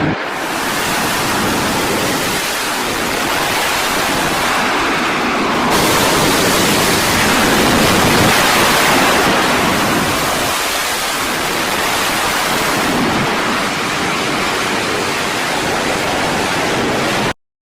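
Fighter jet engines running at high power on a carrier deck: a loud, steady rushing noise with no distinct tones that swells and eases slightly, then cuts off abruptly near the end.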